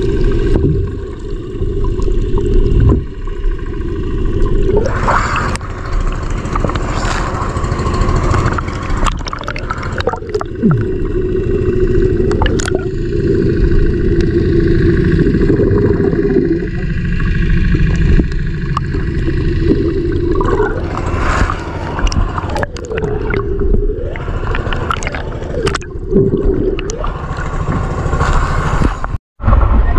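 Muffled underwater sound picked up by a camera held below the surface: a steady low rumble of churning water, with gurgling bubbles now and then.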